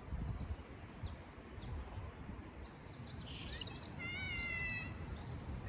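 Sycamore stick whistle blown once in a steady, high note just under a second long, about four seconds in. Birds chirp faintly around it over a low wind rumble.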